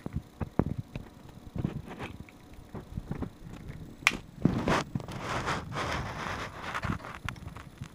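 Java macaque smacking its lips and tongue in a run of short, sharp clicks while chewing breath strips. From about halfway through, a crinkly rustle as it handles the plastic strip pack.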